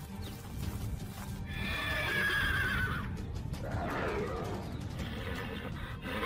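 A horse whinnying: a long neigh falling in pitch about a second and a half in, another call around four seconds, and a quavering whinny near the end, over a steady low rumble.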